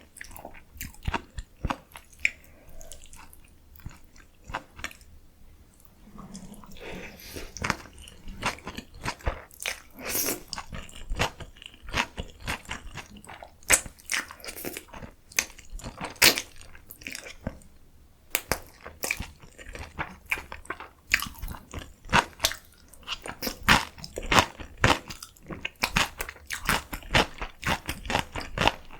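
Close-miked eating of spicy noodles with crunchy young summer radish kimchi and kimchi dumplings: crisp crunching bites and wet chewing, many sharp crunches in quick succession, with a softer, quieter stretch about six seconds in.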